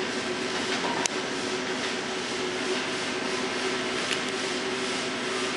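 R160 subway train pulling away down the tunnel, its running noise echoing steadily through the station over a low hum, with a sharp click about a second in.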